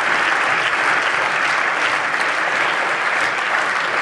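Steady applause from many people clapping in a parliament chamber, a sustained round without a break.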